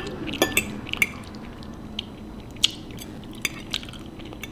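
Eating utensil clinking and scraping against a bowl of macaroni and cheese. There are several light clicks close together in the first second, then a few scattered ones.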